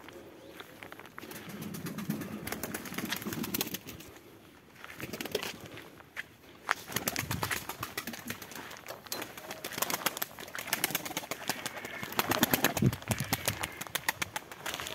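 Domestic pigeons cooing, loudest from about one to four seconds in, over a scatter of short sharp clicks and taps that grow thicker and louder in the second half.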